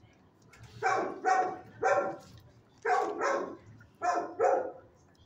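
A dog barking in short runs, three barks, then two, then two, about seven in all.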